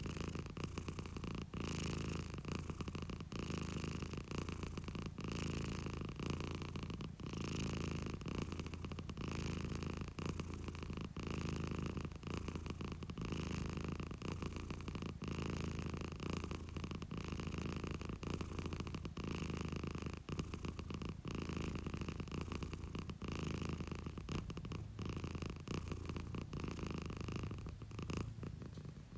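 Domestic cat purring steadily at close range, the purr swelling and easing with its breathing about once a second.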